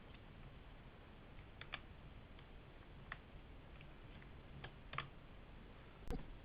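A few faint, sharp plastic clicks and ticks, a second or two apart, as a netbook keyboard is worked free of its retaining clips, with a sharper knock near the end.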